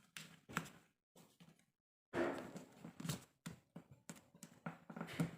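Origami paper rustling and crinkling in short bursts as it is folded and creased by hand, louder about two seconds in.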